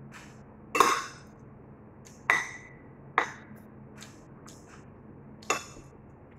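Metal spoon and fork clinking and scraping against a plate while eating, about four sharp clinks spread over several seconds, one of them ringing briefly.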